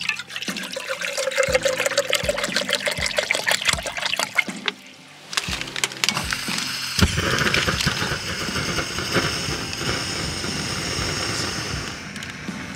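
Water poured from a plastic bottle into a metal pot, then, after a short pause, a gas canister camp stove lit about seven seconds in and burning with a steady hiss. Background music runs underneath.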